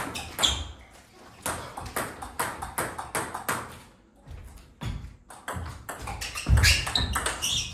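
Table tennis rally: the celluloid ball clicking off the rubber bats and bouncing on the table in quick succession, with a short lull about four seconds in and a heavier thump near the end.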